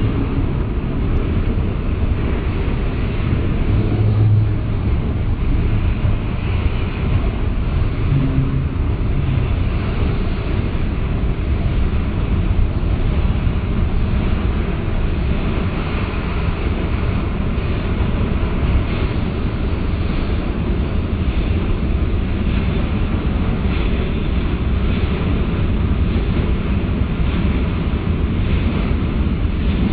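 Freight cars rolling past on steel rails, a steady rumble of wheels on track, with a faint, evenly repeated clack from about halfway through as bulkhead centerbeam flatcars go by.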